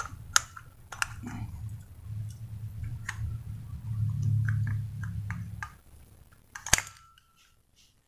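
Brass throttle slide of a PE28 carburetor being slid in and out of the carburetor body to test it, with light metallic clicks and taps over a low rubbing rumble, and one sharp click near the end; the slide moves smoothly.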